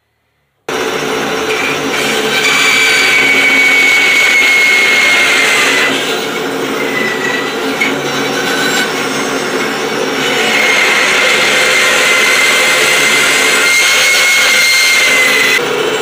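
Bandsaw running and cutting through a bristle brush's back and bristles, a steady loud machine sound with a high whine that fades partway through and then comes back. It starts abruptly just under a second in.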